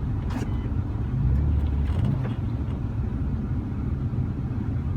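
Low, steady rumble of a car's engine and tyres heard from inside the cabin. It swells briefly about a second in, with a few faint ticks.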